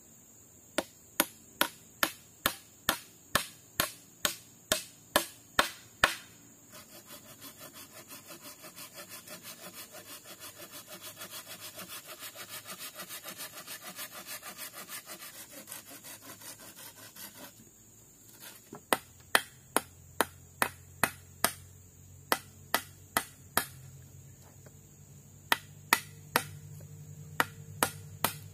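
Wood being worked with hand tools: sharp, regular knocks about three a second, then about ten seconds of fast back-and-forth sawing, then the knocks again for the last third.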